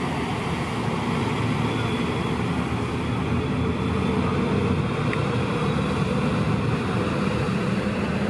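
Austal 40 m catamaran ferry's MTU diesel engines running with a steady drone, the propulsion churning the water as it manoeuvres to berth.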